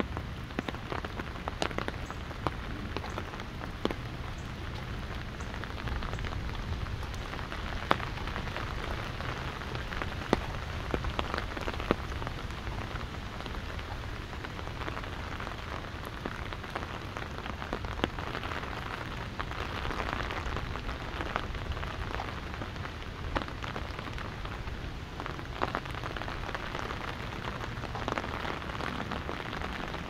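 Steady rain with many sharp individual drops tapping on an umbrella overhead, and a low rumble of wind underneath.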